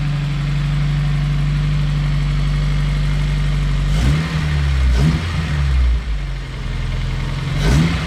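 Honda S2000's freshly rebuilt F20C2 2.0-litre four-cylinder engine idling on its first run after the rebuild. The revs swing up and back down briefly about four and five seconds in, and again near the end.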